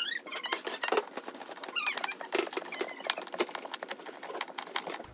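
Rapid clicks and clatter of chipboard and plastic furniture parts being handled and fitted, mixed with short high squeaky chirps near the start and about two seconds in.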